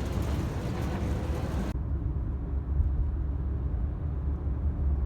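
Steady low rumble of a motor vehicle with road noise, heard from close by. About two seconds in, the higher hiss cuts off abruptly, leaving a duller, muffled rumble.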